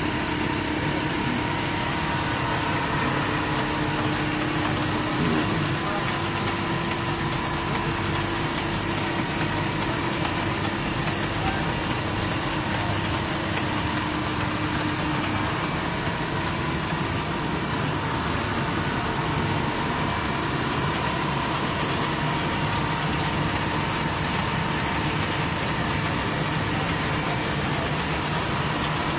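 Breathable PE film extrusion and winding line running: a steady machine hum and hiss from its motors and rollers, with a few steady tones. A high whine comes in a little past halfway and holds.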